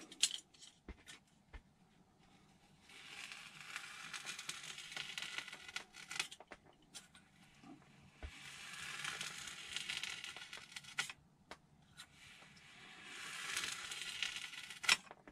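Craft knife blade drawn slowly through a foam glider wing along a steel ruler: a scratchy tearing sound in three long strokes of two to three seconds each, with a few sharp clicks near the start and near the end.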